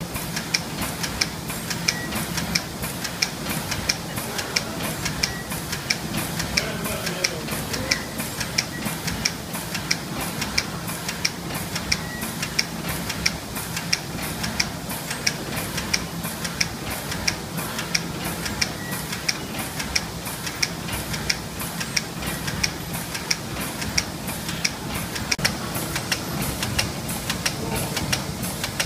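Fritsch Multiline pastry line running: a steady machine hum with a sharp, regular click about twice a second from the machine's cycling.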